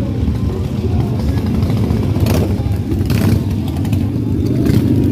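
Several custom chopper motorcycles riding slowly past close by, their engines running with a steady low pulsing and three brief louder surges in the middle and near the end.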